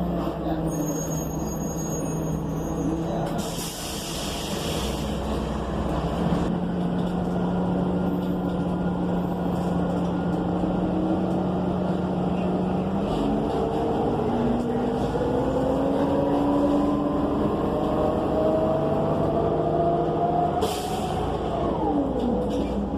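Cummins Westport ISL G natural-gas engine of an ENC EZ Rider II bus idling steadily, with a burst of air hiss about four seconds in. About halfway through the bus pulls away and the engine pitch climbs steadily, then drops sharply near the end as the Allison automatic transmission upshifts, just after a second short air hiss.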